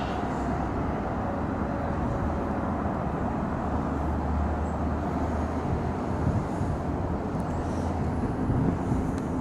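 Slow-moving freight train rolling past: a steady low rumble of diesel locomotives and steel wheels on the rails.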